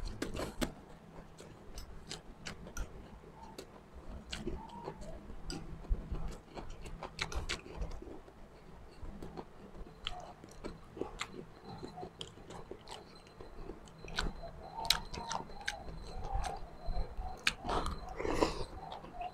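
A person chewing and biting food close to the microphone, with many small wet clicks and smacks, and a louder burst about a second before the end.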